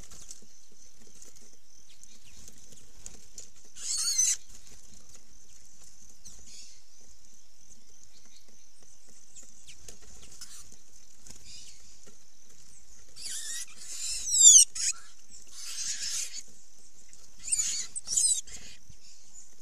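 Sayaca tanagers giving short, high-pitched squeaky calls over a steady high hiss: one burst about four seconds in, then a cluster of calls in the second half.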